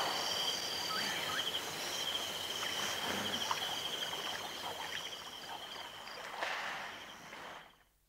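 Insects keep up a steady, pulsing high-pitched trill while larks chirp faintly and intermittently above it. A brief rush of noise comes shortly before the end, and then the ambience fades out.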